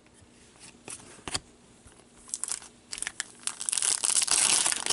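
Foil wrapper of an Upper Deck Trilogy hockey card pack crinkling and tearing as it is pulled open. It starts with a couple of light clicks and scattered crackles, then builds into steady loud crinkling over the last second and a half.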